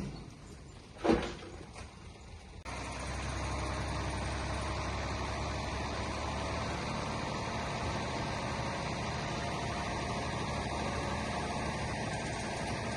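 A single sharp knock about a second in, then from about three seconds on a heavy construction machine's diesel engine running steadily.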